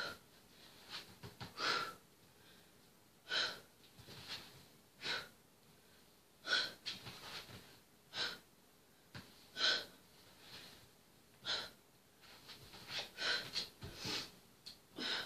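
A woman's heavy breathing from exertion during hard oblique plank crunches: short, forceful breaths about once every one and a half seconds, in time with her reps, closer together near the end.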